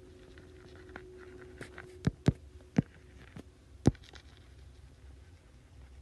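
Stylus tapping on a tablet screen during handwriting: about half a dozen sharp ticks between one and four seconds in, over faint room hiss.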